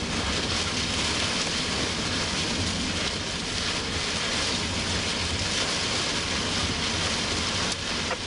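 Heavy rain hitting a vehicle's windshield and roof, heard from inside the cabin as a loud, steady hiss, over a steady low rumble from the vehicle.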